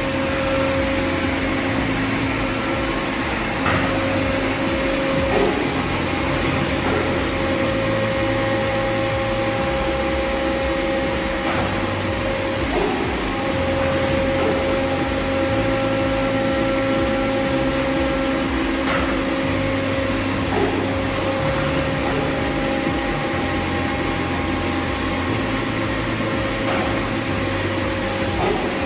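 Hydraulically driven KSP piston pump system running: a steady machine hum with a humming tone that drops out and comes back every several seconds, and a short knock at several of those changes.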